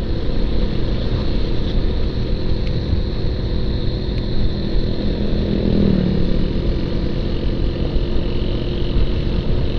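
Wind buffeting the microphone and the motorcycle's engine running steadily while riding at cruising speed on the highway.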